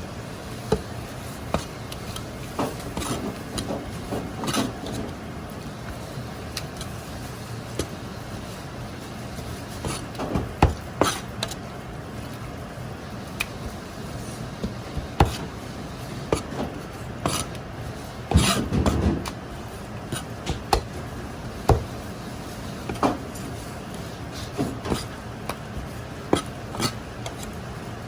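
Irregular clinks, taps and knocks of kitchen utensils and containers being handled in a commercial kitchen, over a steady low hum, with a louder cluster of knocks about two thirds of the way through.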